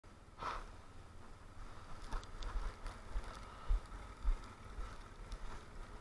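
Boots crunching through snow in a few irregular steps, over a low rumble on the action camera's microphone.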